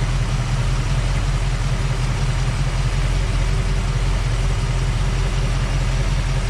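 Car engine idling steadily, left running warm with the radiator cap off so the thermostat cycles and air is burped out of the cooling system.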